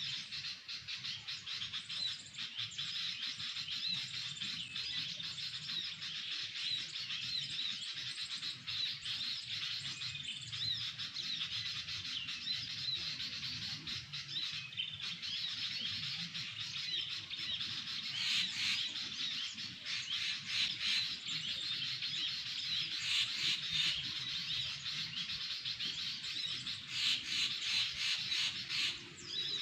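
Birds chirping continuously in rapid, high-pitched twittering, with busier bursts of calls about two-thirds of the way through and again near the end.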